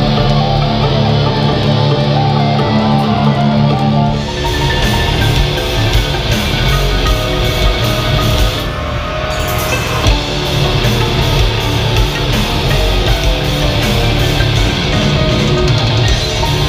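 A black metal band playing live through a venue PA, heard from the audience floor with distorted electric guitars. A held chord rings for the first few seconds; about four seconds in, drums and cymbals come in and the full band plays on.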